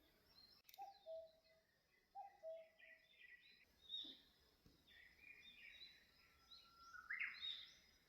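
Faint birdsong: scattered short chirps and trills from several birds, with a low two-note falling call heard twice in the first few seconds and a brief rising trill near the end.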